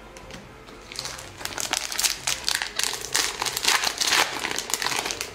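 Foil wrapper of a Cardfight!! Vanguard booster pack crinkling as it is handled and opened by hand, starting about a second in.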